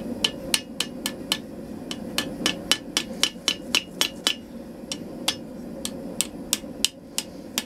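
Hand hammer striking red-hot steel held over a bending jig on an anvil, bending the end of a flint striker around. The blows come about three a second in short runs with brief pauses, each a sharp ringing metal strike.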